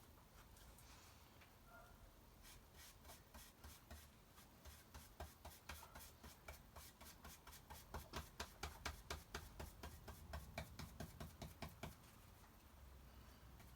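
A small paintbrush dabbing paint through a stencil onto a wooden box: soft, quick taps that start a couple of seconds in and come about three or four a second, loudest in the last few seconds before they stop.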